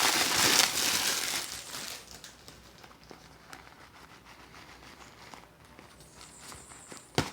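Packaging crinkling as new boxing gloves are unwrapped, dying away after about two seconds. Faint handling clicks follow, and there is a single sharp knock near the end.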